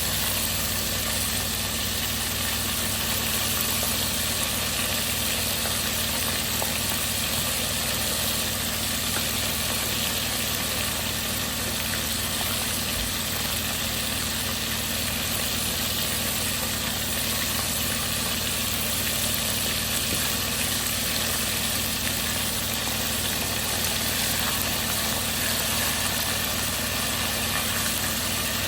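Chicken drumsticks frying in hot oil in a pan: a steady sizzling hiss that holds even throughout, over a low steady hum.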